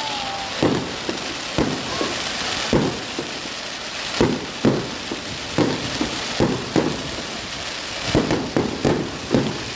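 Fireworks going off in quick succession: more than a dozen sharp bangs at uneven intervals over a steady crackling hiss, with a brief whistle at the start.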